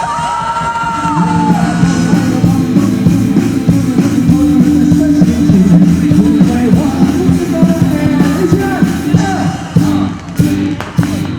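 A rock band playing live. A held vocal note opens it, then a steady bass and chord groove carries on, with sharp drum hits near the end.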